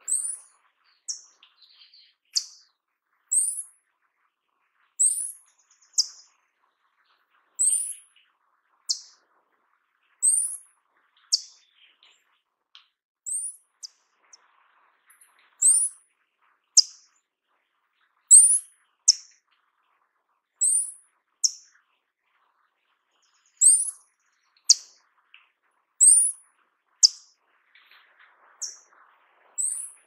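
Paradise tanager calling: a long series of very thin, high-pitched notes, each sliding downward, mostly given in pairs about every two and a half seconds.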